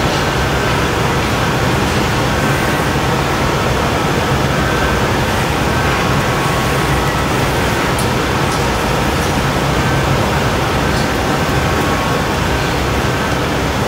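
Steady rushing noise of a glassblowing hot shop's gas burners and ventilation, with a few faint clicks.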